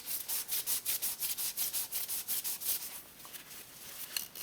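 Shop rag wiping quickly back and forth around the oil filter housing, a fast run of short rubbing strokes about five a second that stops about three seconds in, followed by a few faint ticks.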